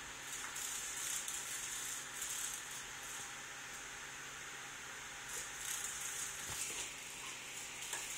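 A golden retriever pouncing at a dragonfly on a concrete floor: two spells of high, hissy scuffling and rattling, starting about a third of a second in and again past the five-second mark.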